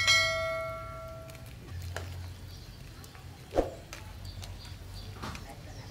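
A chime-like bell ding from the subscribe-button overlay, sounding right at the start after a click and ringing out for about a second and a half. About three and a half seconds in, a single sharp clink as a metal ladle goes into the metal soup pot, over a low steady hum.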